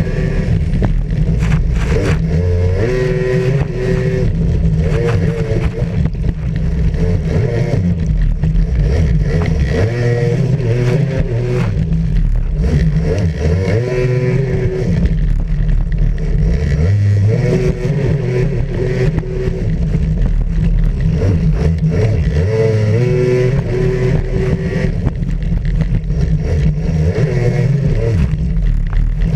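Racing jet ski engine at high revs, its pitch rising and falling again and again as the throttle is worked, with the hiss of water spray and wind rushing over the bow-mounted microphone.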